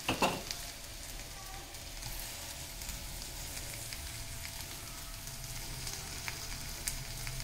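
Finely chopped raw prawns sizzling in hot oil with sautéed small onions in a kadai, a steady low sizzle. It opens with a brief clatter as they go into the pan.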